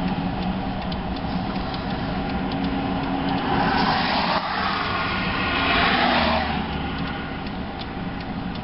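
Road traffic going past a stopped car, heard from inside the cabin: a vehicle rushes by, swelling and fading between about four and six and a half seconds in, over a steady low hum.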